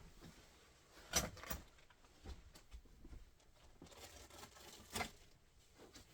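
Quiet room with soft rustling and a few sharp knocks: a pair about a second in and another near the five-second mark.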